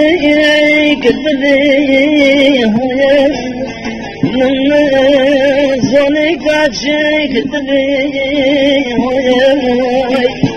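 A man singing a folk melody in long held notes that waver and turn in ornamented dips, over instrumental accompaniment.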